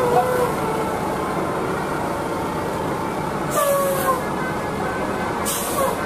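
A large diesel tour coach running as it passes close by, its engine a steady heavy hum. There are two short hisses of air about three and a half and five and a half seconds in.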